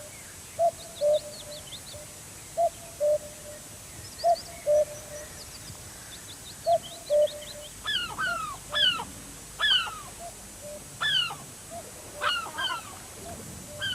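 Wild birds calling. A low two-note call repeats about every two seconds, with faint high chirps above it. From about halfway, louder short calls that sweep down in pitch join in.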